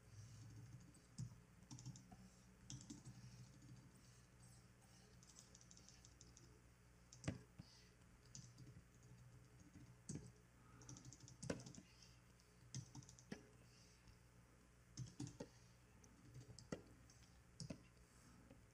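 Faint, irregular computer keyboard keystrokes and clicks: scattered single taps, a few of them sharper than the rest.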